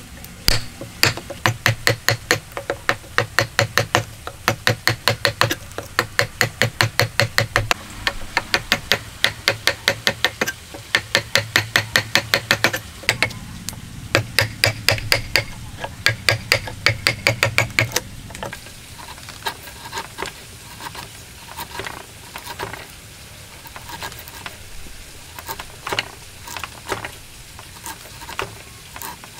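A woodworking chisel struck in quick runs of blows, about three to four a second, as it chops into a timber joint. About two-thirds of the way through, the blows stop and give way to quieter, irregular scraping and slicing as the chisel is pushed by hand to pare shavings off the end grain.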